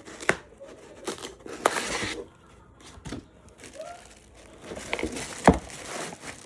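Plastic being handled: crinkling and rustling with several sharp clicks, the loudest about five and a half seconds in.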